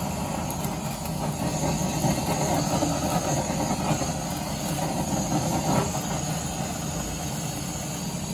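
Handheld kitchen blowtorch running with a steady hiss as its flame is played over halved onions in a frying pan to char them.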